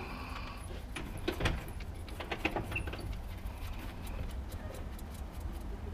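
Irregular light metallic clicks and scrapes as the refill plug bolt is fitted back into the gearbox by hand, over a steady low rumble.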